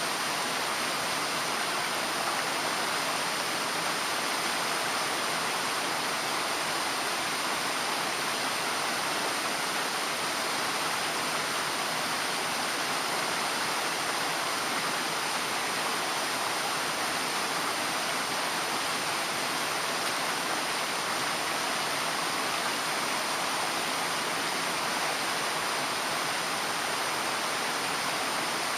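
Mountain stream rushing over rocks: a steady, even rush of water with no breaks.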